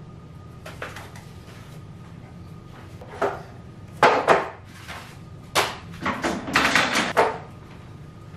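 Household items being handled and put away: a run of knocks and clattering scrapes, loudest about four seconds in and again from about five and a half to seven seconds, over a steady low room hum.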